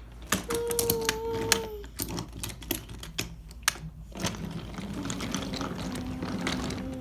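Wooden toy train pieces and track clicking and clacking against each other, with a child's voice holding a long, slightly falling whistle-like note about half a second in and a lower held hum near the end, imitating a train.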